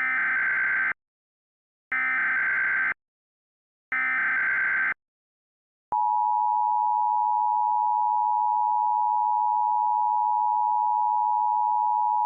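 Emergency Alert System header: three one-second bursts of warbling data tones (the SAME header code), then, about six seconds in, the EAS two-tone attention signal starting up as a steady shrill pair of tones sounding together. It marks the start of an emergency alert broadcast.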